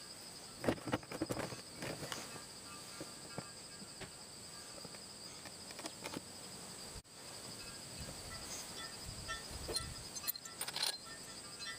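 Insects, likely crickets, trilling steadily in a high pulsing chirr. Scattered sharp clicks and knocks come and go over it, heaviest near the start and again near the end.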